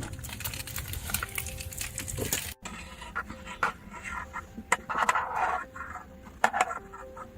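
Dog panting, mixed with scattered sharp clicks and crackles.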